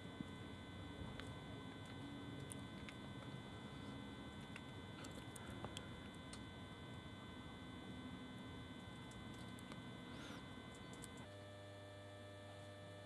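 Faint, steady electrical hum with a few light clicks; about eleven seconds in, a lower mains hum sets in.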